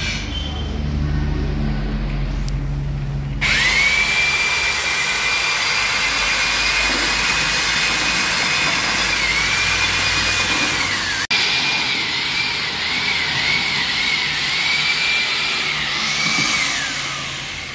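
Low machinery rumble, then an electric power tool starts abruptly and runs at a high whine over a harsh rushing noise. Its pitch dips repeatedly and wobbles as the tool is loaded and eased off, then falls away near the end.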